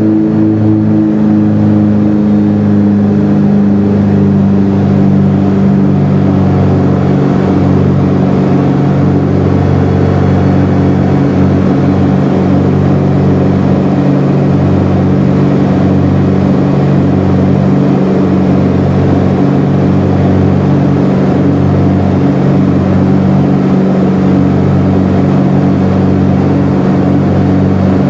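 Cessna 421's twin geared, turbocharged Continental flat-six engines and propellers running at climb power, heard inside the cabin as a loud, steady drone. The pitch eases down slightly in the first couple of seconds, then holds steady through the climb-out after takeoff.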